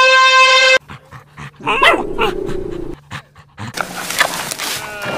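A long, drawn-out cat meow cuts off suddenly less than a second in. A dog then pants and makes short, rough vocal sounds, and a bleat begins near the end.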